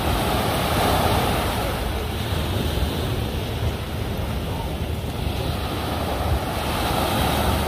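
Small sea waves breaking and washing up a pebble beach, surging about a second in and again near the end, with wind rumbling on the microphone.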